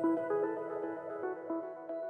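Background music of soft, separately struck notes that grow quieter, fading out.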